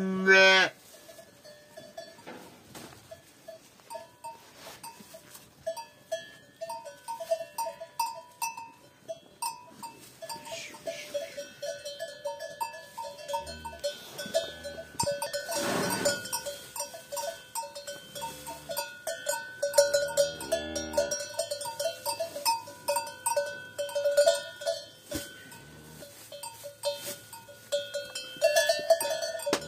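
A bell on one of the cattle clinks irregularly all through, as the animal moves and feeds. A calf calls briefly at the very start, and there is another lowing call about twenty seconds in.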